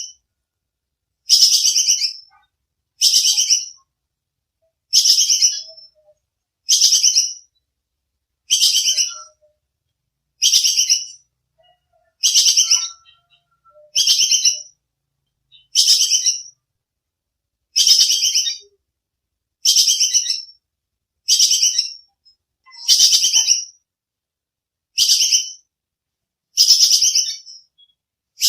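Bajing kekes squirrel calling over and over: each call is a sharp, rapid chattering trill under a second long, repeated roughly every two seconds, with clean silence between calls.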